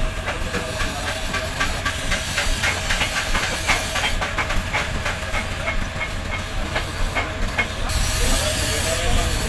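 Small metal bells and chain links on a truck's hanging chain fringe clinking against a tin paint can and each other as they are dipped, in rapid light clinks, over a steady hiss that grows stronger near the end.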